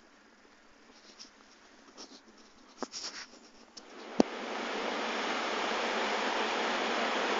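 Faint soft knocks and clicks, then a sharp click about four seconds in, after which the steady rush of Firehole Falls, a waterfall on the Firehole River, takes over and stays loud.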